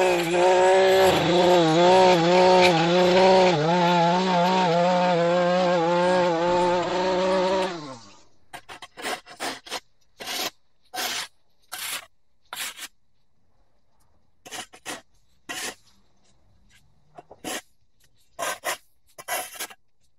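Gas stick edger engine running under load, its pitch wavering as the blade cuts, then winding down with a falling pitch and stopping about eight seconds in. After that, a flat shovel scrapes dirt and sod off a concrete walkway in short, separate strokes about once a second, with near silence between.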